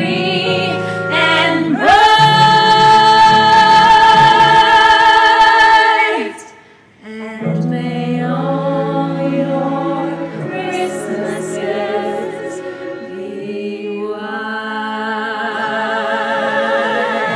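Singing over backing music. A long, loud held note with vibrato comes about two seconds in and lasts about four seconds, followed by a brief drop about seven seconds in before the singing goes on.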